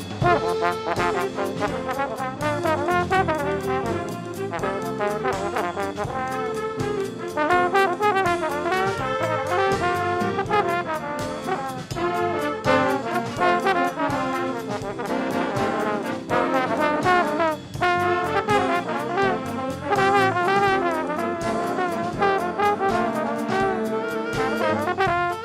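A student band's brass section playing a tune, with trombones and trumpets to the fore, continuing without a break.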